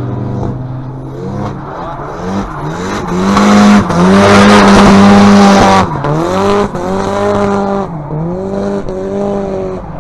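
Car engine revved hard several times, rising and dropping in pitch, held high for about two seconds midway, which is the loudest stretch, with tyres squealing over it.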